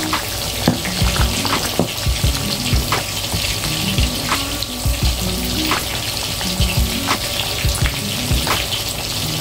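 Prawn and drumstick kuzhambu, a thick tamarind curry, simmering in a steel pot: a steady sizzling hiss with scattered small pops of bubbles.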